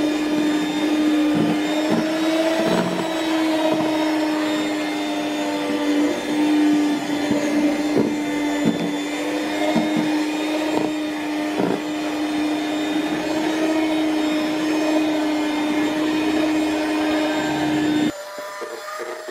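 Philips electric hand mixer running steadily with its beaters in thick brownie batter, with scattered short knocks, then switched off near the end.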